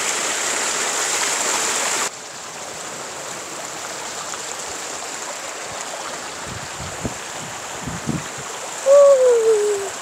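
A small mountain stream runs over rock slabs with a steady rushing sound, which drops abruptly to a quieter level about two seconds in. A few soft thumps come near the end, followed by a loud, drawn-out vocal call from a person that falls in pitch.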